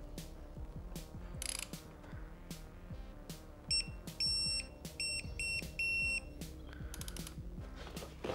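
Digital torque wrench tightening a motorcycle's front axle, giving a run of high electronic beeps about halfway through, one held longer than the rest, the signal that the 50 Nm target torque is reached. Background music with a steady beat plays underneath.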